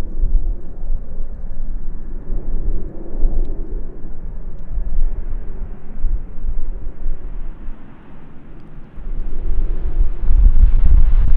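Boeing 737-800 airliner on approach, the whine and rush of its CFM56 jet engines rising and growing louder over the last few seconds as it nears, over a gusty wind rumble on the microphone.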